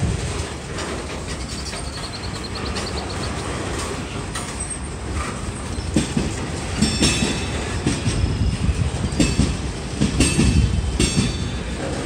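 Freight cars (covered hoppers and boxcars) rolling past at close range: a steady low rumble with the wheels clacking over rail joints, the knocks coming thicker and louder in the second half.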